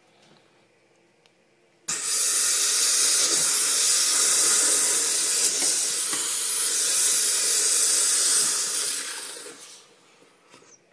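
Enrich Fogger 6 bed-bug sprayer spraying: a loud, steady hiss that starts suddenly about two seconds in, holds for about seven seconds, then fades out.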